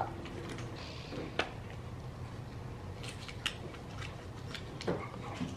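Quiet room with a steady low hum and a few faint, scattered clicks and rustles of small objects being handled.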